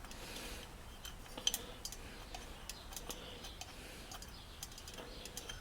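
Light, scattered clicks and taps of small metal parts and screws being handled on a workbench, with one sharper click about one and a half seconds in.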